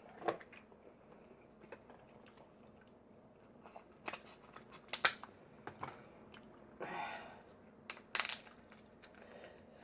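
Eating at the table: scattered sharp clicks and cracks of king crab shell being handled and broken, with chewing in between.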